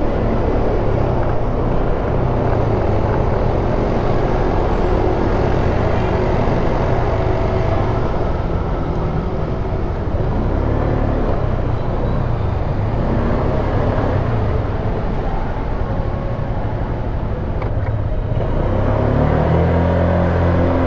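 Honda Click scooter's single-cylinder engine running steadily while riding through city traffic, heard from on the bike with road and wind noise. The engine note rises near the end as the scooter speeds up.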